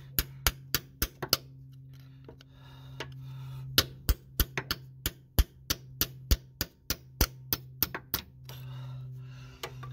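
Hammer blows, about three a second in two runs with a pause between and a last single strike near the end, driving a tool into the old transaxle axle seal of a 2008 Pontiac Montana to dent one side in so the seal can be pried out. A steady low hum runs underneath.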